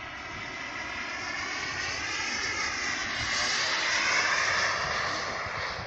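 Radio-controlled model jet's small turbine engine whining as the plane flies past. It grows louder to a peak about four seconds in and then fades, the pitch rising and then falling.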